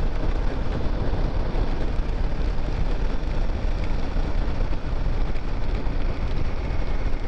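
Royal Enfield Himalayan single-cylinder motorcycle running on the move, with a steady rush of wind over the microphone.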